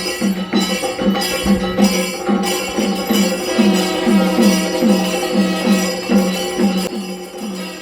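Music with percussion over a held drone, short notes repeating about three times a second.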